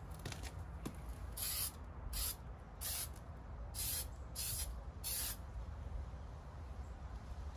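Aerosol can of cold galvanizing compound spraying in about six short hissing bursts, each under half a second, between roughly one and a half and five seconds in.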